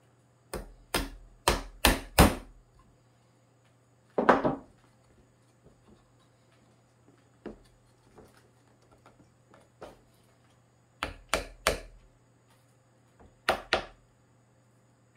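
Sharp knocks on wood as the freshly glued pine box pieces are tapped into line: a quick run of about five, a single knock, then groups of three and two.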